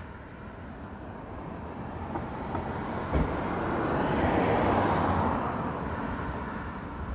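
A vehicle passing out of sight, its noise swelling to a peak partway through and fading away, with a brief low thump just after three seconds.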